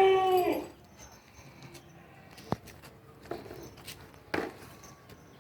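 Malwa goat bleating: the end of one long, loud call that stops about half a second in, followed by a single sharp click and a few soft knocks.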